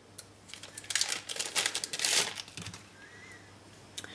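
Thin plastic packaging crinkling and rustling as small parts are unwrapped by hand. It comes in short bursts for about two seconds, starting about a second in.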